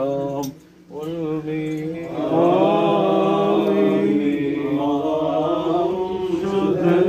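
Christian liturgical chanting, a sung prayer with long held notes during a house blessing. After a brief pause about half a second in, it grows fuller and louder about two seconds in, as several voices chant together.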